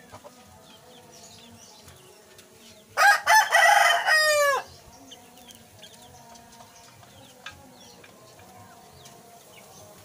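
A rooster crowing once, loud, about three seconds in and lasting about a second and a half, its last note falling away. Faint short chirps of small birds sound around it.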